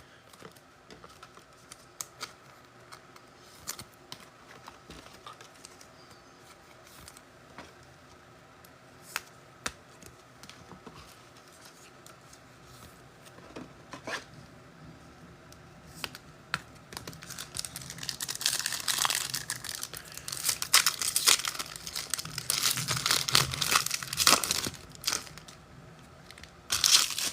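Scattered light clicks and taps of cards being handled, then from about 18 seconds in a trading-card pack's foil wrapper being torn open and crinkled.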